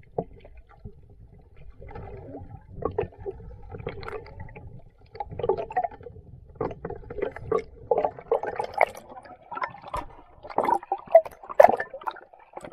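Water gurgling and sloshing around a camera held just under the sea's surface, heard muffled through the water, with scattered small knocks and splashes. It grows louder and busier in the second half, with the loudest splashes near the end as the camera reaches the surface.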